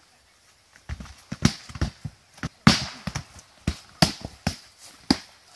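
Foam boffer swords striking shields and one another in a group melee: a quick, irregular run of dull thwacks starting about a second in, the loudest near the middle.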